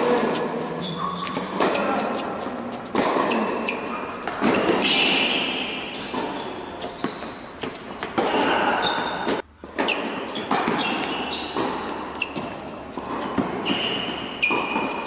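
Tennis rally in a large indoor hall: racket strikes and ball bounces echoing, with short high squeaks in between. The sound cuts out briefly about two-thirds through.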